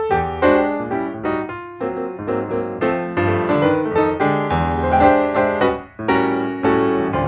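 Background piano music: a flowing run of single notes and chords, with a brief drop in level about six seconds in.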